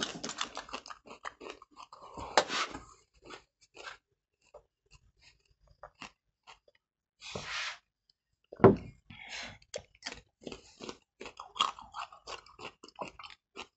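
Whole raw red onions being bitten and chewed: irregular crisp crunches and wet chewing, sparser for a few seconds in the middle.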